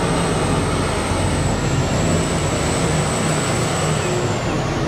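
Heavy truck engine running loud and steady, with a thin high whistle over it.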